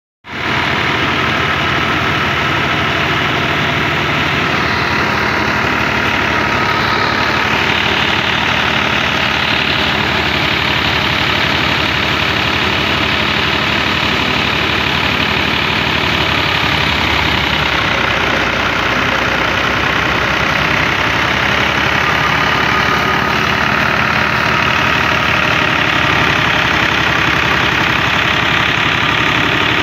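New Holland 480 tractor's diesel engine running steadily under load, driving a wheat thresher through its PTO shaft, with the thresher's drum and belts running alongside in one loud, continuous mechanical din.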